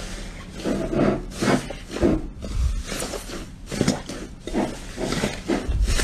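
Slime being squeezed and kneaded by hand, making a string of irregular wet squelches.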